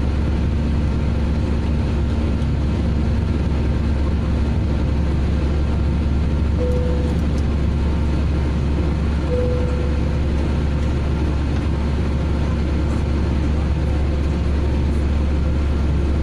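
Cabin noise of an Airbus A319 climbing after take-off, heard from a window seat over the wing: a steady roar of the jet engines and rushing air with a deep rumble underneath. Two brief tones sound in the middle.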